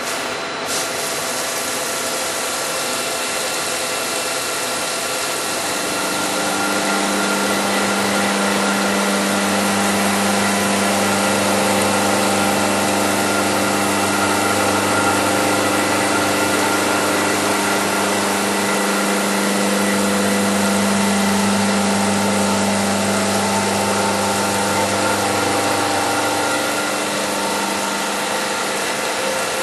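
CNC thread milling of Hastelloy: a 4-flute solid carbide thread mill on a spindle at 1,500 RPM, with a steady hiss of flood coolant. From about six seconds in a low, even hum joins as the flutes cut a 1/2"-14 NPT external thread, and it fades a few seconds before the end as the cut finishes.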